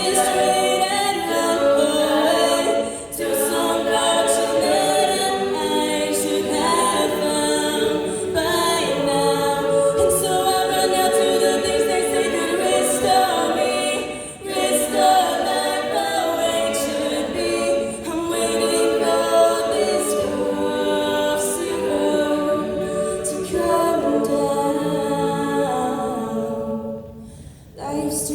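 A cappella group singing in layered harmony, voices only, with sharp regular ticks in the high range over the chords. The sound drops away briefly near the end before the voices come back in.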